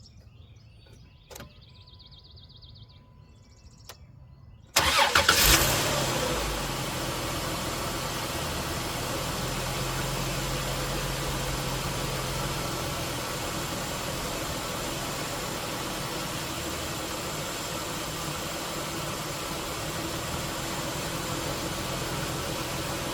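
Dodge Intrepid's V6 engine starting about five seconds in, then idling steadily on freshly replaced spark plugs. It still runs stumbly, which the owner puts down to a possible vacuum leak or a failing alternator.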